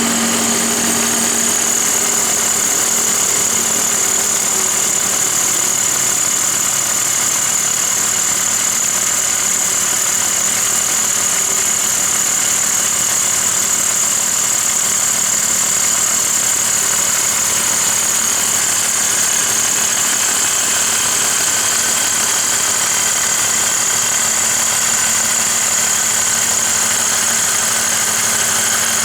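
BMW M54 3.0-litre straight-six engine idling steadily, with a steady high-pitched whine over the engine note.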